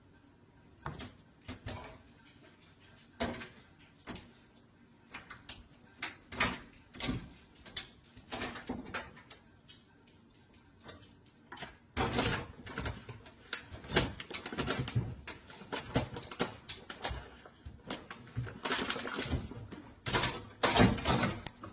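A cat's claws scrabbling, bumping and knocking against a wooden kitchen cabinet door and a microwave as it climbs into the cabinet. The knocks are scattered at first and turn into denser scuffling about halfway through.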